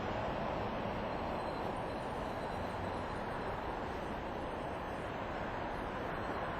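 Steady vehicle noise: an even, unchanging rumble and hiss.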